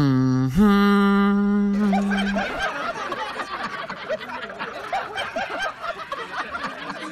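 Canned audience laughter, many people laughing together and slowly fading. It comes in behind a held synthetic-sounding note that steps up in pitch about half a second in and stops after about two seconds.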